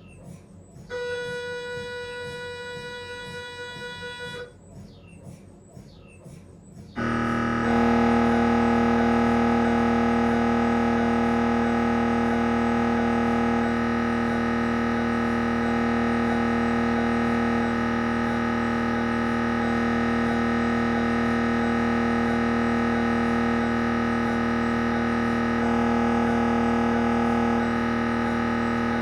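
Siemens Magnetom Avanto 1.5-tesla MRI scanner during a head scan. A steady tone sounds for about three and a half seconds, then faint regular ticking follows. At about seven seconds the gradient coils start a loud, steady droning buzz of several tones that runs on, its tone mix shifting slightly a few times as the imaging sequence runs.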